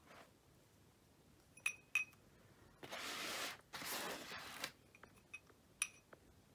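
Light handling of craft materials: two small ringing clinks of hard objects, then two short stretches of rustling about three and four seconds in, then a few light clicks and one more clink near the end.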